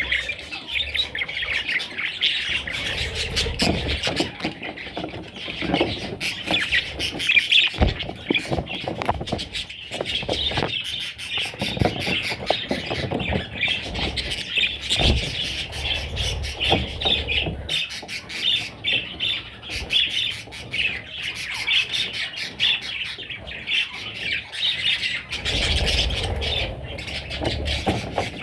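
Several budgerigars chattering and squawking without pause, a dense stream of short chirps, with a few low thuds scattered through it.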